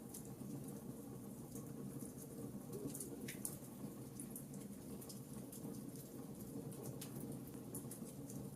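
Wood fire crackling: a steady low hiss of flames with frequent small, irregular pops and snaps.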